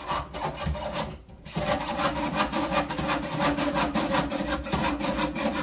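Jeweler's saw blade cutting sheet metal held in a rotating clamp: quick, even back-and-forth strokes that rasp, with a brief pause just over a second in.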